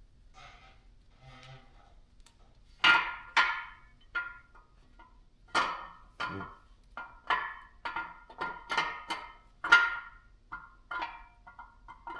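An irregular run of about fifteen sharp metallic knocks and clinks, each with a short ringing note, beginning about three seconds in after some faint rustling: metal engine parts or tools knocking together during an engine teardown.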